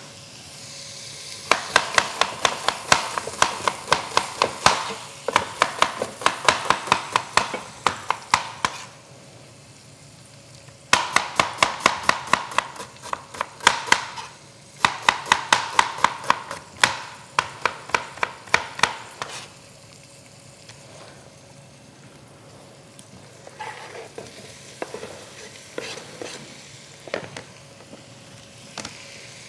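Kitchen knife slicing onions on a cutting board in two long runs of rapid, even strokes, several a second. Softer, scattered sounds follow near the end.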